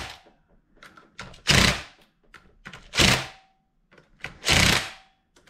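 Power tool run in three short bursts about a second and a half apart, tightening the Allen bolts of a Yamaha Banshee clutch lockout (pressure plate) down against its springs.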